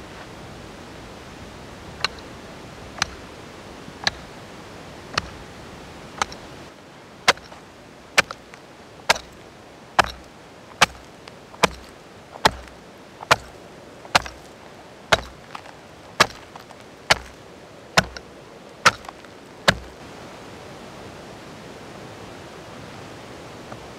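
A hatchet chopping a hole through lake ice for ice fishing: about twenty sharp, evenly spaced strikes, roughly one a second. The strikes start about two seconds in, come a little faster toward the end, and stop a few seconds before the end, over a steady faint hiss.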